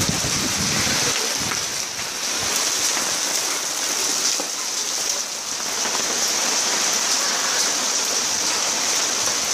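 Hail and rain falling on a wet concrete floor: a steady, dense hiss of many small hits.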